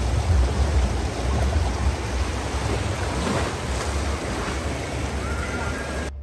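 Rushing, churning water of a river-rapids ride channel, heard from aboard a raft, with wind buffeting the microphone in a low rumble. It breaks off suddenly shortly before the end.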